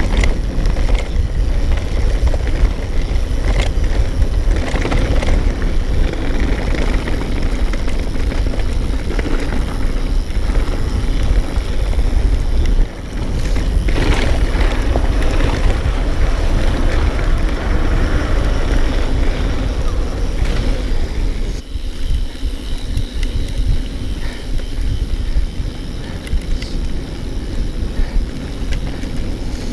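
Wind rushing over the camera microphone and tyres rumbling over a dirt track as a mountain bike descends at speed. The rush eases a little about two-thirds of the way through.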